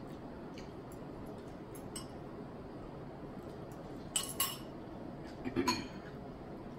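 Metal forks clinking against glass bowls while noodles are eaten: scattered light clinks, with two sharper ones about four seconds in and another near the end, over a steady room hiss.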